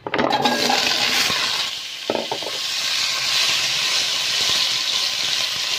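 Diced potatoes, carrots and bell pepper tipped into hot oil in a stainless steel pot, setting off a sudden loud sizzle at once. There is a short knock about two seconds in, and then steady frying.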